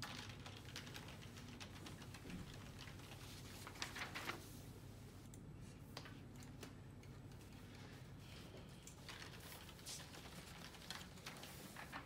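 Faint, scattered clicks of typing on laptop keyboards, over a low steady room hum.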